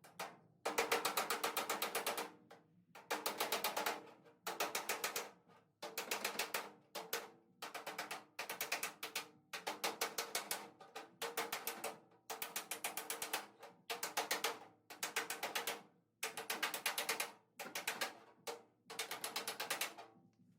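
Rapid strikes on sheet-metal patch pieces, hammering them flat, in about a dozen bursts of a second or so each with short pauses between.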